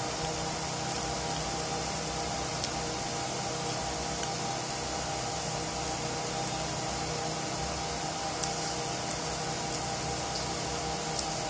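Steady mechanical hum and hiss, like a room fan running, with a few faint clicks.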